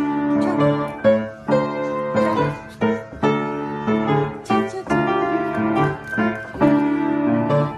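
Piano played with both hands: a run of chords, each struck and left ringing, changing about every half second to a second.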